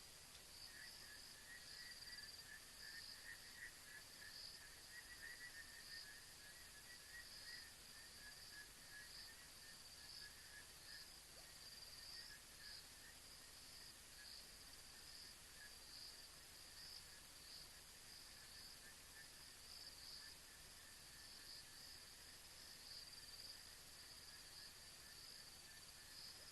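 Faint night chorus of crickets or other insects chirping steadily at a high pitch, with a second, lower trilling chorus that fades about halfway through.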